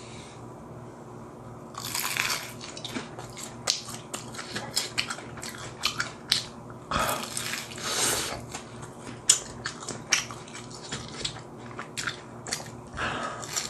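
Crisp-battered fried chicken drumstick being bitten and chewed close to the microphone. A loud crunch of breading comes about two seconds in, followed by rapid crackling and chewing, with further crunchy bites later on.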